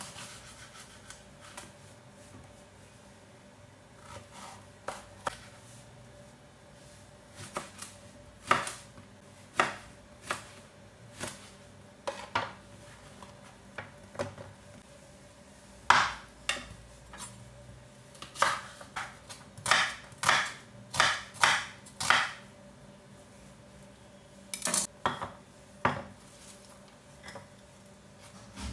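Kitchen knife slicing eggplant and onion on a wooden chopping board: irregular knocks of the blade striking the board, coming in quick runs with pauses between.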